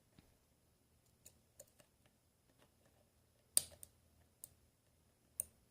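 Scattered light metallic clicks of a lock pick and tension wrench working the pins of a Master Lock Pro Series padlock, with the sharpest click about three and a half seconds in.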